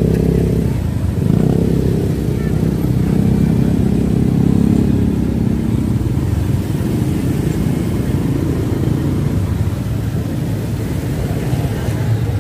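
Motorcycle engine running at walking pace in slow, crowded traffic, with other motorbikes and cars close around; a steady low engine hum throughout.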